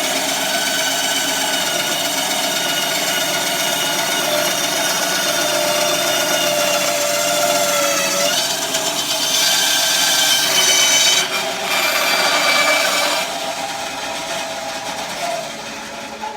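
Band saw running, its blade cutting through plywood as the square is turned on a circle-cutting pivot jig. A steady whine with a rougher, louder stretch of cutting in the middle, after which the sound slowly fades.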